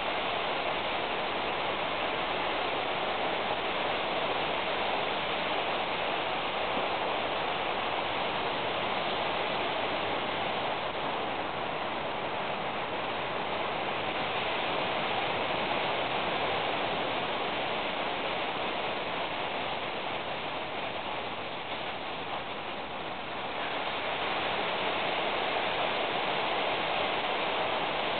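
A steady, even hiss of noise with no distinct events, dipping slightly for a second or two about three quarters of the way through.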